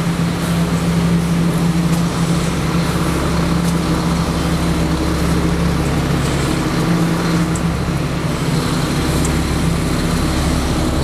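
Steady vehicle engine and traffic noise with a constant low hum.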